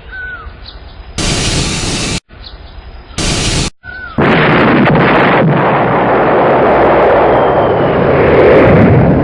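Short, abruptly cut bursts of rocket roar alternate with a bird's brief falling chirps. About four seconds in, a long, loud explosive roar begins and swells toward the end.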